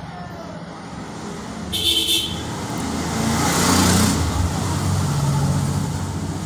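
A car's engine and tyre noise heard from inside the cabin while driving, getting louder toward the middle. A brief higher sound comes about two seconds in, and a louder rush around four seconds in.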